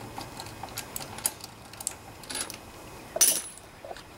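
Irregular light metallic clinks and taps of hand tools being handled on a small engine's cylinder head, with a sharper clank about three seconds in.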